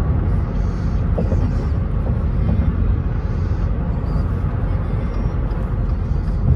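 Steady road and tyre rumble with engine noise, heard inside a vehicle's cabin while cruising at highway speed.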